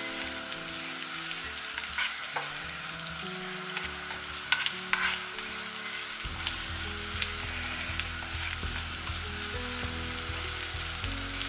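Diced potatoes sautéing in oil in a frying pan, with a steady sizzle. A few sharp clicks and scrapes of a utensil against the pan come about two seconds in and again around four and a half to five seconds in.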